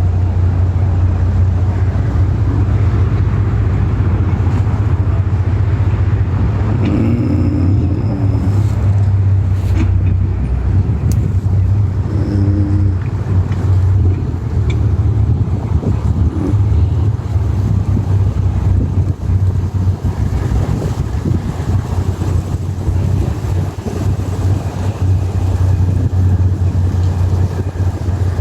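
A crane's engine running steadily, a loud, even low drone, with faint distant voices a couple of times.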